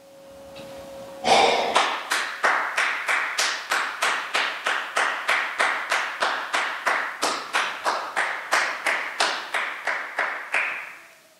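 One person clapping hands in a steady rhythm, about three claps a second, starting about a second in and stopping near the end.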